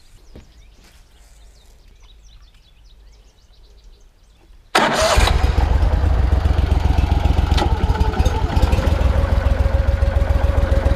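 Small boat motor starting suddenly about five seconds in and then running steadily and loudly, pushing the boat across the water.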